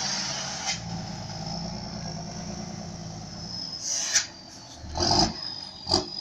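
Volkswagen 31.320 truck with a straight-pipe exhaust running at low revs, a steady low rumble as a louder burst fades in the first second. Several short, louder bursts break in about four, five and six seconds in.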